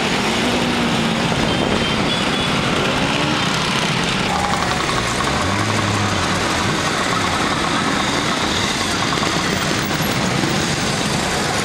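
A stream of motor scooters, classic Vespa-style scooters among them, riding past, their small engines running together in a steady drone. Single engine notes come and go and bend in pitch as individual scooters pass.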